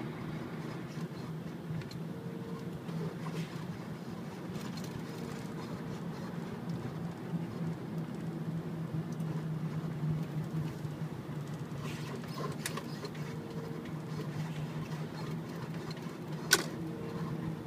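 Car cabin noise while driving: a steady low engine and tyre hum with road noise. A single sharp click near the end.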